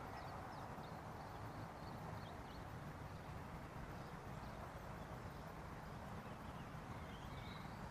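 Faint, steady background noise, a low hiss, with a few faint short high chirps scattered through it.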